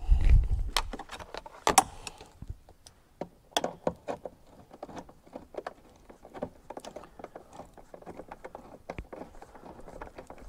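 Seat mounting bolts and seat-frame hardware being worked by hand into their holes on a car's floor: irregular small metallic clicks, taps and rattles, with a dull bump at the start and a sharper knock just before two seconds in.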